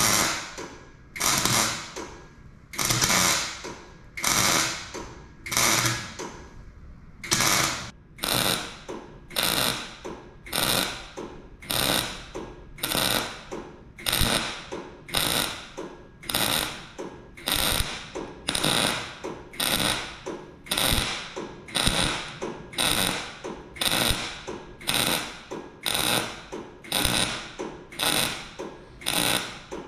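MIG welder laying a row of short stitch welds, its arc crackling in bursts of about half a second, roughly one a second; the first few bursts run a little longer with longer gaps.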